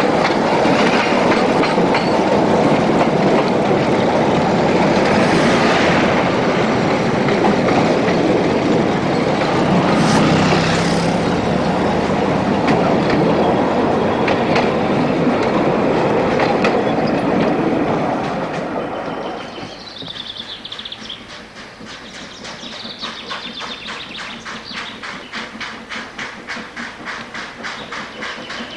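Narrow-gauge steam train passing close by: a loud, continuous rumble and clatter of the locomotive and its carriages. About two-thirds of the way through it drops away, and a quieter steam locomotive is heard approaching with a quick, regular beat of exhaust chuffs.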